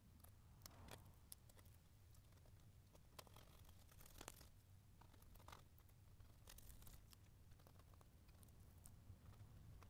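Faint, scattered scratching and small ticks of fingernails picking at and peeling a vinyl lettering decal off a truck's window glass, over a low steady hum.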